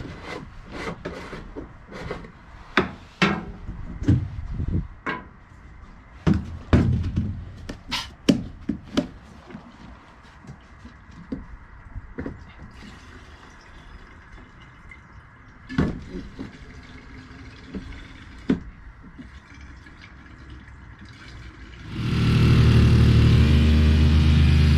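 Scattered knocks and clatters, then about 22 seconds in a snowblower's small engine starts up and runs loud and steady.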